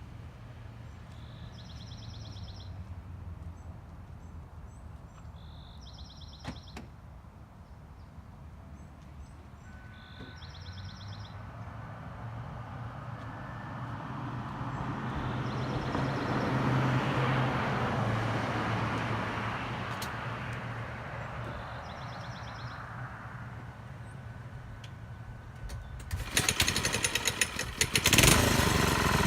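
Birds chirping now and then over outdoor quiet, while a vehicle passes, swelling and fading over several seconds. Near the end a small single-cylinder engine, the mini ATV's modded 212cc four-stroke, starts up and runs loud with a fast, even beat.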